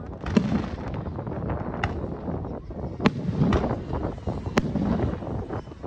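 Aerial fireworks shells bursting: about four sharp bangs spaced a second or more apart, over a continuous low rumble, with wind on the microphone.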